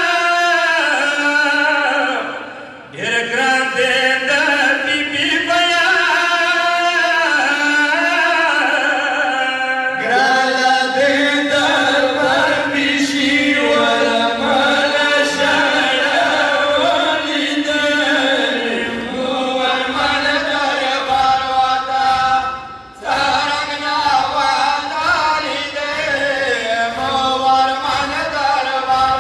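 Men's voices chanting a Pashto nohay, a Shia mourning lament, as one continuous melodic recitation, with brief breaks for breath about three seconds in and again near twenty-three seconds.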